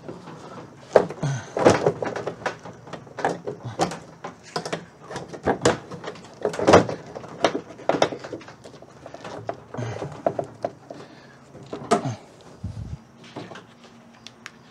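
Irregular clunks, knocks and scrapes of metal and glass inside a VW Beetle door shell as the window glass and regulator are worked into place by hand. Parts are catching on the regulator as they go in.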